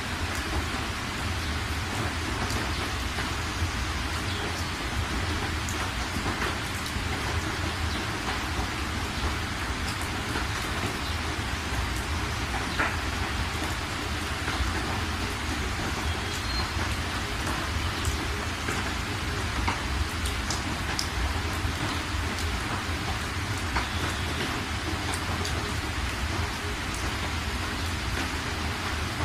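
Heavy rain hitting a moving car's windscreen and roof, heard from inside the cabin: a steady hiss dotted with the ticks of single drops striking the glass, over a constant low rumble from the car on the wet road.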